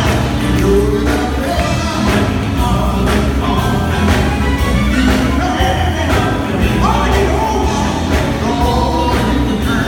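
Live gospel band playing, with electric guitar, drums and a heavy bass line under a male lead singer singing into a microphone.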